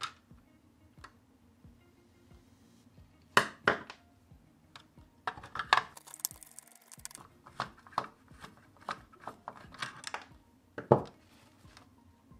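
A screwdriver unscrewing the small screws from the base of a scale model car, with sharp clicks and knocks of the screws, the screwdriver and the model being handled and set down on a wooden table. The loudest knocks come about three and a half seconds in and about a second before the end.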